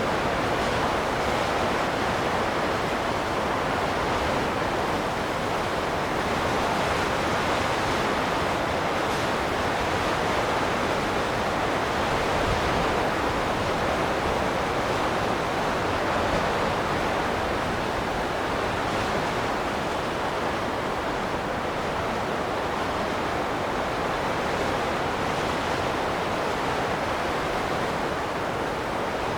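Wind blowing steadily: a dense, even rush with only slight swells in strength.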